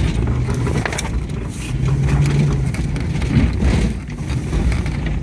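1997 Subaru Impreza's flat-four engine running under load, heard from inside the cabin as it drives over rough off-road ground. A low rumble is broken by scattered knocks and rattles.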